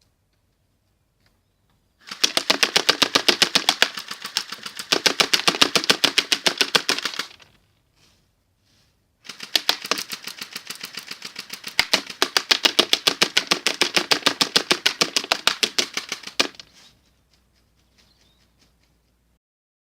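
Airsoft AK-47 replica firing on full auto in two long bursts of rapid, even clicking, the first about five seconds long and the second about seven, with a short pause between.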